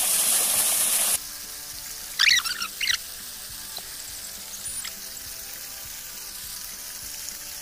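Creek water rushing and splashing around a shovel digging in the streambed, cut off abruptly about a second in. A quieter stretch follows, with a brief warbling chirp about two seconds in.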